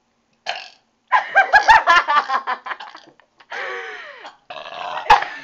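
A girl burping loudly over and over: a rapid run of short, pitched burps, then two longer burps that slide down in pitch.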